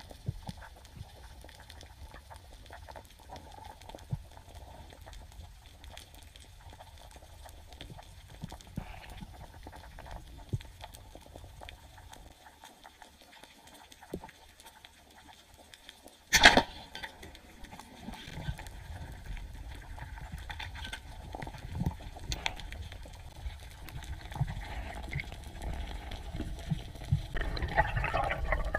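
Underwater water noise, low and rumbling with faint clicks, that drops away for a few seconds; then a single sharp crack of a Pathos Laser roller speargun firing a little past halfway, after which the water noise returns and grows louder near the end.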